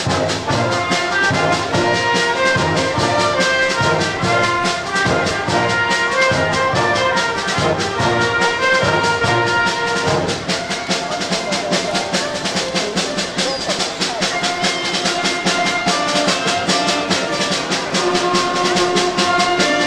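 Concert band playing live: brass and woodwinds over steady, even percussion strokes. About halfway through, the low rhythmic bass pattern drops out and longer held notes take over.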